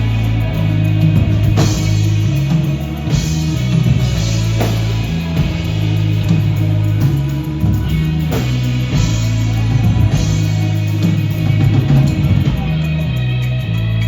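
Live rock band playing an instrumental passage with no vocals: electric guitar, a loud stepping bass line and drum kit with repeated cymbal crashes.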